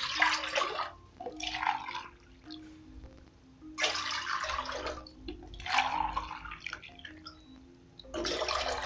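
Water poured from a plastic cup into an aluminium cooking pot, cup after cup, each pour a splash that settles as it runs into the pot. The water is being measured in for boiling rice. Soft background music plays underneath.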